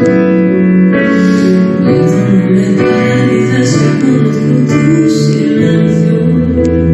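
A woman singing into a handheld microphone, accompanied by piano.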